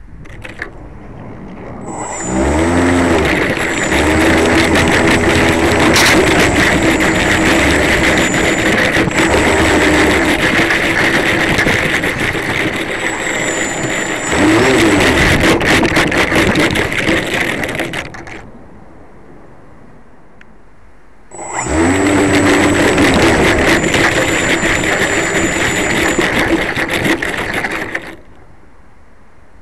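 Pilatus Porter RC model plane's motor and propeller spinning up with a rising whine, running at taxi power for about sixteen seconds with a throttle surge partway through, then cutting out. After a pause of about three seconds it spins up again, runs for about seven seconds and stops.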